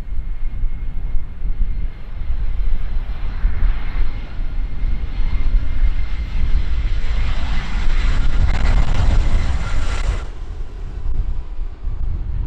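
Airbus A320 jetliner on low final approach: its CFM56 engines' roar and fan whine build as it closes in, then cut off suddenly about ten seconds in. Heavy wind buffets the microphone throughout.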